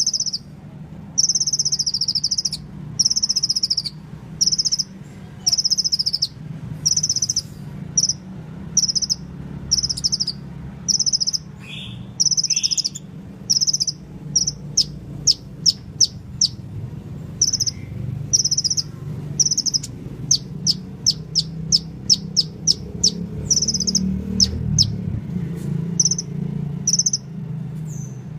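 A sunbird singing: high, thin notes repeated about once a second, broken twice by runs of quick, sharp ticking notes, over a faint low steady hum.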